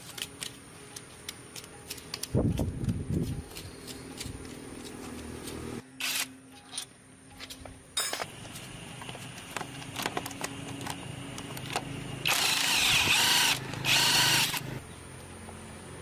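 Workshop tool work: scattered clicks and knocks, then two short loud bursts of a power tool such as a drill a little before the end.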